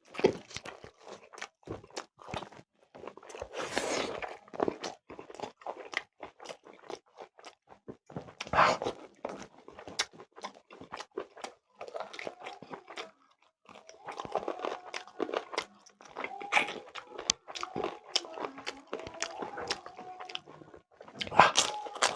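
A person eating close to the microphone: irregular biting and chewing mouth noises, with a louder bite about 8 seconds in and another near the end.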